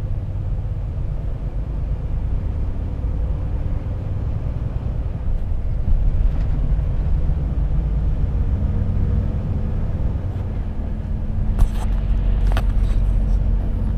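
Diesel engine and road rumble of a Volvo FH truck heard from inside the cab as it gathers speed, with a few sharp clicks near the end.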